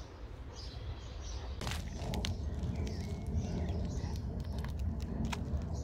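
Birds chirping faintly over a steady low rumble, with a few sharp clicks or taps about two seconds in and again near the end.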